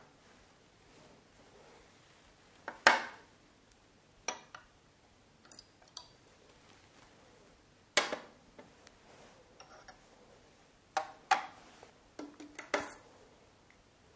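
Small glass bottles clinking and knocking as they are picked up and set down on the bench trays: scattered sharp clinks, the loudest about three and eight seconds in, with a quick cluster near the end.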